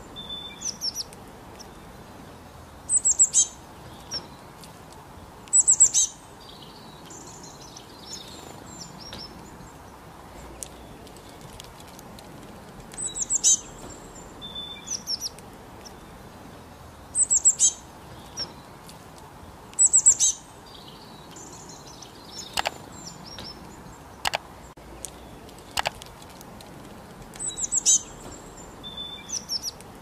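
Small songbirds chirping: short high-pitched phrases of a few quick notes every few seconds over a faint steady hiss, with a few sharp ticks about two-thirds of the way through.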